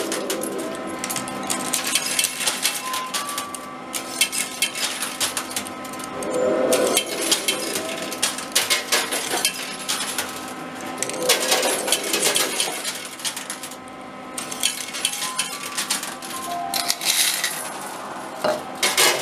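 Coins clinking and clattering in a coin pusher arcade machine: many quick metallic clicks as coins drop in and slide across the trays, over a steady electronic hum from the machine with a few short beeps.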